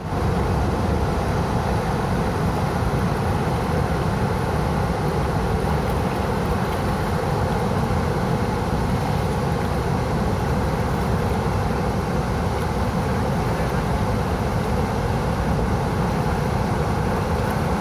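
Large waterfall: a loud, deep, steady rush of falling water that does not let up.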